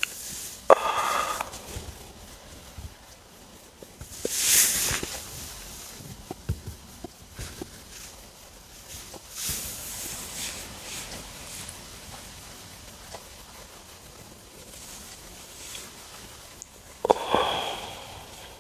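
Stomach rumbling while digesting a meal: a short pitched gurgle about a second in and another near the end, with two hissing noises between them.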